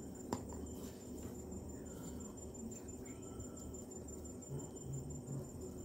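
A faint, steady high-pitched cricket trill under a low background hum, with one soft tap about a third of a second in as folded paper is pressed down by hand.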